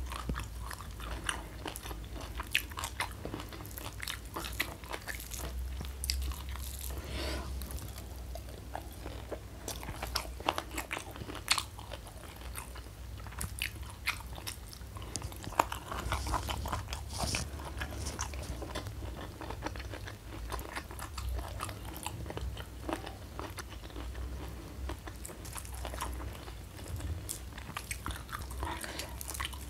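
Close-up chewing and crunching of crispy battered fried mushrooms with sambal: a string of sharp, irregular crunches with wet mouth sounds between them.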